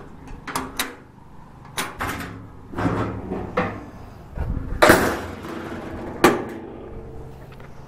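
Hinged metal lid and latch of a Hobart 4346 meat mixer-grinder being handled and shut: a string of metal knocks and clanks, the loudest about five seconds in, then a sharp click a little over six seconds in.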